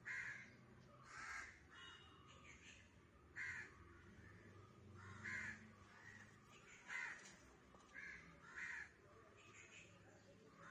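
Crow cawing repeatedly, with about eight short, faint caws spaced one to two seconds apart.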